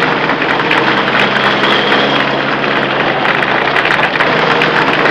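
Loud, dense city traffic: many vehicle engines running together, cutting in abruptly just before.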